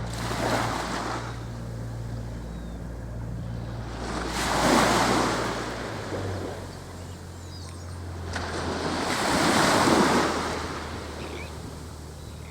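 Sea waves surging in and washing back, a swell about every four to five seconds, with wind buffeting the microphone.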